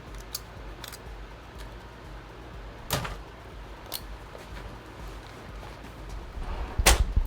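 Scattered sharp clicks and light knocks from handling small laptop parts on a workbench, with a louder click and low thump near the end.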